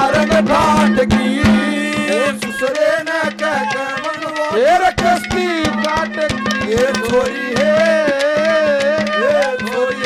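Haryanvi ragni folk band playing an instrumental passage: a melody that bends up and down in pitch over a steady low drone, with quick hand-drum and clay-pot (matka) strokes throughout.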